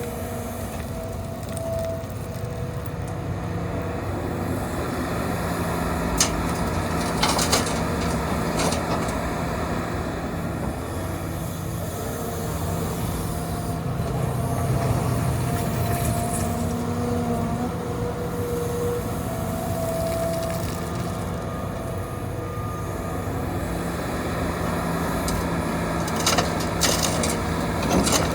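Hitachi 350 excavator working: its diesel engine running steadily under load with wavering hydraulic whines rising and falling as the arm moves. A few sharp clanks of the bucket digging gravel, with a cluster near the end.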